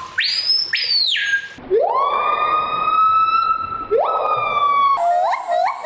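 Strange animal calls in quick succession: high rising whistled wails that sound like a siren, then a fast run of short chirps near the end.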